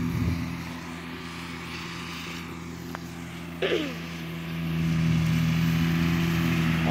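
Kubota G5200 diesel mower's engine running steadily at a distance, growing louder about four and a half seconds in as the mower comes closer. A short falling cry sounds about halfway through.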